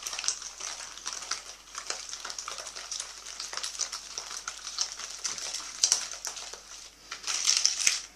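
Wire whisk beating eggs into a butter-and-sugar batter in a bowl: a fast, continuous run of clicking and scraping strokes, busier and louder near the end.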